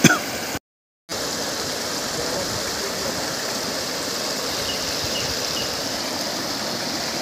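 Floodwater rushing steadily across a submerged road, an even hiss of fast-flowing water. It cuts to silence for half a second about half a second in.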